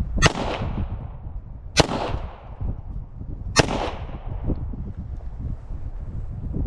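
Three shots from a semi-automatic pistol, about a second and a half apart, each followed by a short echo that dies away.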